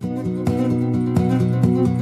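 Music of strummed acoustic guitar, with a strong stroke about every half second.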